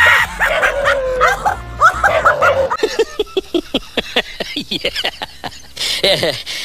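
Dogs barking and yelping, short high calls in quick succession, over music. From about three seconds in, the barking gives way to a fast run of short, sharp repeated sounds, about seven a second.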